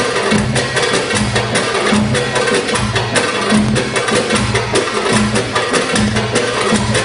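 Belly dance music driven by fast, dense percussion, with low drum strokes repeating on a steady beat.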